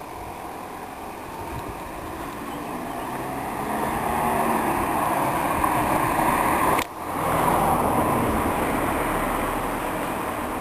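A car passing on the street: tyre and engine noise that builds up over several seconds, stays loud, breaks off for a moment about seven seconds in, then slowly fades away.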